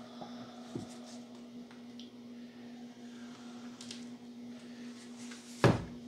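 A steady low hum with quiet handling of wooden parts. A light knock comes about a second in, and near the end a single sharp knock as a plastic bottle of wood glue is set down on the wooden workbench.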